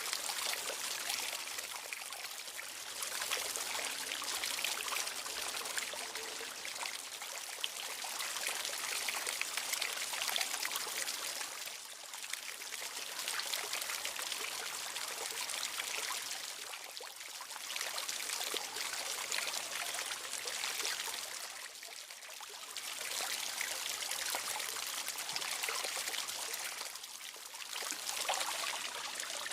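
Running water flowing and splashing in a steady hiss, easing briefly about every five seconds before picking up again.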